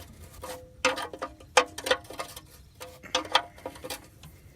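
Wrench clicking and clinking against the oil-pan drain plug as it is put back in and tightened: irregular sharp metal clicks, about three a second, some ringing briefly.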